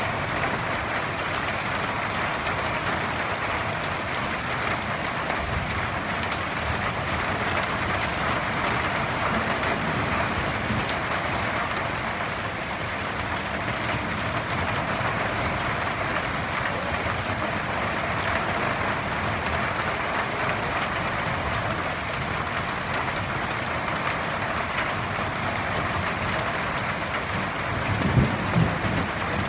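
Heavy rain falling in a steady downpour, an even hiss with no letup. Near the end a brief low rumble of thunder rises under it.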